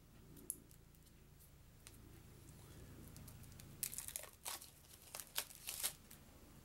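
Plastic shrink-wrap crinkling and tearing as it is picked open and peeled off a stack of game tiles: a few faint clicks, then a quick run of sharp crackles over about two seconds near the end.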